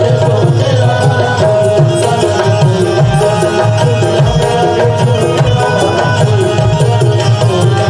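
Instrumental passage of qawwali: harmonium holding and moving through melody notes over a busy tabla rhythm.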